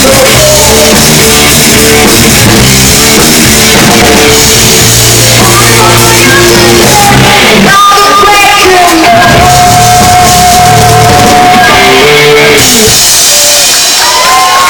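Live rock band playing: electric guitars, drum kit and vocals, very loud, with a long held sung note in the middle.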